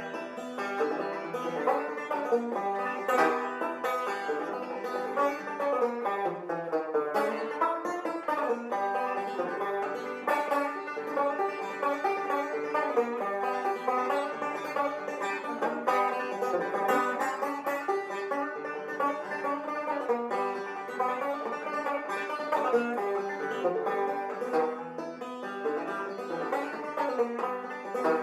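Banjo music: a picked banjo tune playing throughout.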